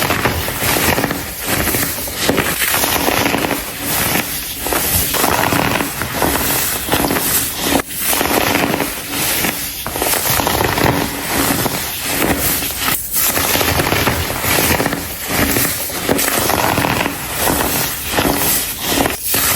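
Dyed, dried baking soda chunks being crumbled and crushed, a dense continuous crackling crunch with brief pauses.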